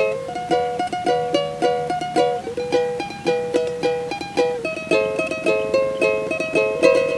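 Instrumental break in a Javanese pop song: a small acoustic string instrument strummed in a quick, steady rhythm. The chord changes about a third of the way in and again past halfway.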